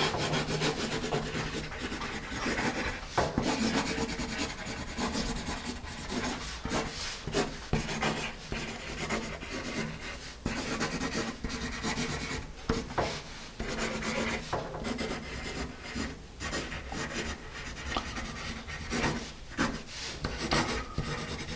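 A Paper Mate EverStrong wood-cased graphite pencil scratching across paper as it writes cursive, in short irregular strokes with brief pauses between letters and words.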